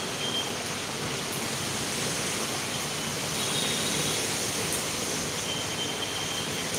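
A steady rushing hiss with a few faint clicks.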